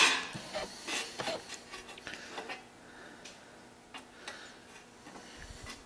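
Thin sheet-metal mock-up adapter plate clinking and scraping against the Getrag 260 transmission's aluminium bell housing as it is set onto the bolt pattern. A cluster of metallic clicks in the first second, then a few lighter ticks.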